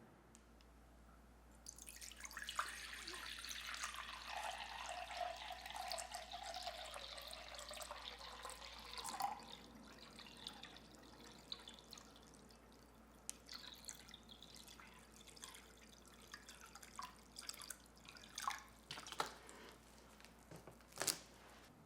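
Water running into a container for about seven seconds, its pitch rising as the container fills. Then a few scattered clicks and knocks of the container and utensils being handled.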